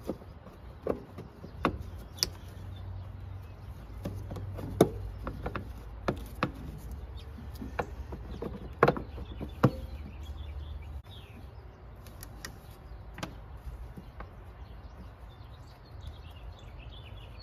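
Scattered clicks and light knocks of hand work fitting a replacement blower motor resistor, its plastic cover and wiring into the van, over a low steady rumble that stops about eleven seconds in. Birds chirp near the end.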